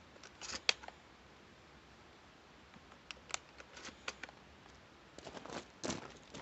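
Faint handling noise: scattered small clicks and short rustles, with a sharp click under a second in, a few more clicks around three to four seconds in, and a denser run of rustling and clicks near the end. No shots are fired.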